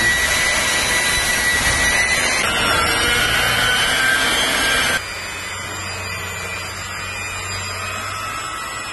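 Rotary car polisher with a pad whirring and rubbing against fresh paint on a door panel, with a faint whine over it: first-stage buffing of a repainted panel. About five seconds in it cuts off abruptly, leaving a quieter steady hum.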